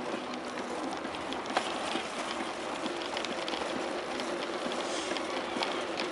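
Bicycle ride noise: tyres rolling on pavement and the bike rattling, with many small clicks over a steady hiss and a faint steady hum.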